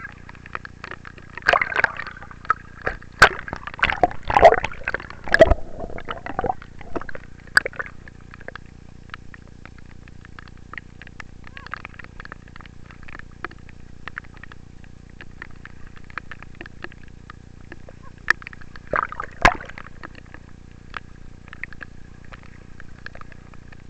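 Water splashing and sloshing as children play in shallow water in the rain, with a steady low water background. Loud bursts of splashes and children's shouts come between about one and a half and seven seconds in and again around nineteen seconds.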